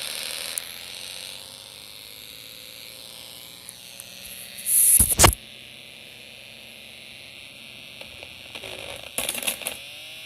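Snap Circuits toy speaker giving a steady high electronic buzz, with faint gliding tones lower down. A loud brief clatter of handling noise comes about halfway, and a few clicks near the end.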